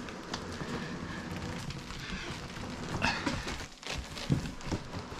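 Cardboard scraping and rustling as a large outer shipping box is pulled up and slid off the inner box, with a few knocks about three seconds in and again a little after four seconds.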